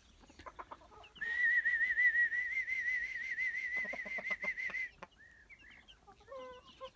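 Mother hen clucking softly to her chick, with short chick peeps near the end. About a second in, a high warbling whistle starts and holds steady for nearly four seconds, the loudest sound.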